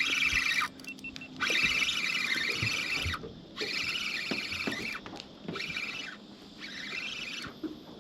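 Fishing reel buzzing in repeated bursts, each about a second long with short pauses between, as a hooked mulloway is played on the line.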